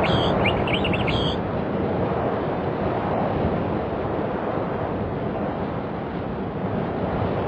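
Steady rushing outdoor noise that slowly fades, with a few short high chirps in the first second and a half.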